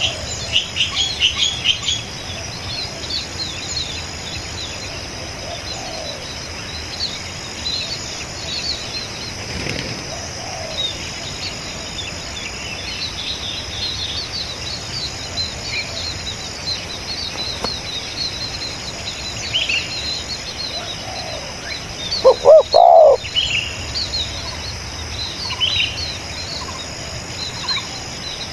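Outdoor birdsong: small birds chirp throughout, most densely in the first two seconds, over a steady high insect-like drone. About 22 seconds in, a spotted dove coos close by in a short, loud phrase, and fainter coos sound now and then in the distance.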